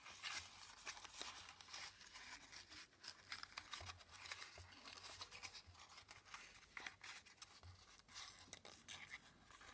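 Faint rustling and crinkling of white cardstock as hands fold and tuck the last flap of a small paper gift box, with many small scattered clicks.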